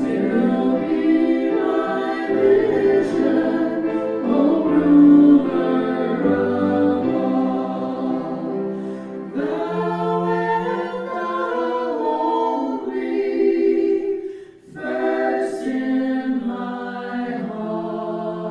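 Choir singing a hymn in harmony, holding long notes, with short breaks between phrases about halfway and three-quarters of the way through.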